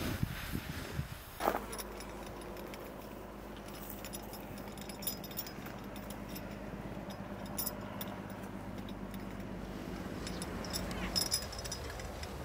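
Metal rings and a buckle on a webbing strap clinking lightly and irregularly as hands work the strap, with a denser run of clinks near the end, over a steady low hum. At the very start, a rake scrapes briefly through rice grain spread out to dry.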